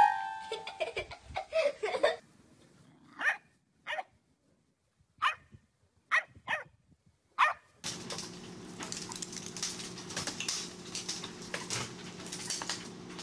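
A dog barking, about six short single barks spread over some four seconds in the middle, followed by a steady low hum with hiss.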